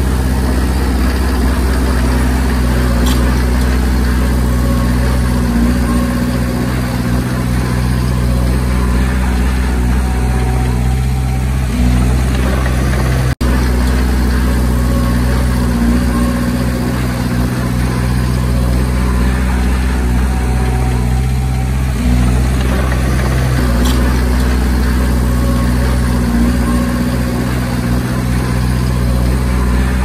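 Diesel engine of a Komatsu D20P bulldozer running steadily under work, its low drone easing slightly a couple of times. The sound cuts out for an instant about halfway through.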